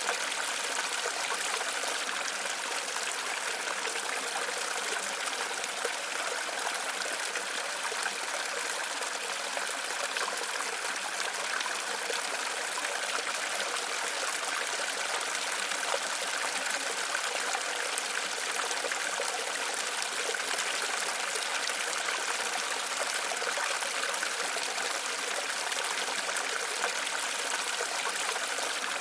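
Steady rush of falling and flowing water from a waterfall, an even hiss with no breaks.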